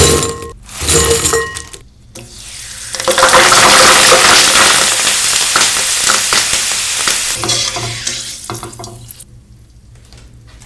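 Onion pakoda fritters deep-frying in hot oil: two short knocks with a metallic ring at the start, then a loud sizzle swells about three seconds in and slowly dies down.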